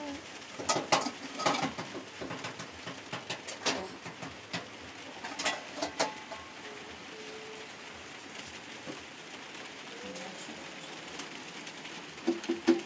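Boiled eggs being cracked and peeled over a small metal plate: a scatter of light clicks and taps in the first six seconds. Soft cooing sounds come and go. Near the end, a quick run of loud, low, evenly spaced pulses begins.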